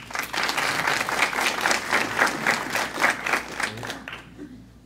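Audience applauding with fast, dense clapping that dies away about four seconds in.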